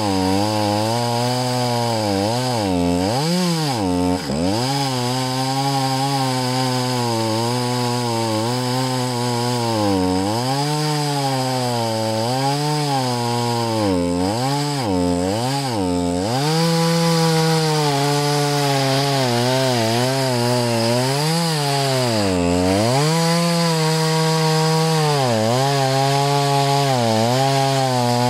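Light two-stroke gasoline chainsaw running at high speed, cutting horizontally along the grain of a log to slice off a board. Its engine pitch sags again and again as the cut loads it and then recovers, and it holds steadier for the last several seconds. Cutting this way along the grain is harder work for the saw than a cross-cut.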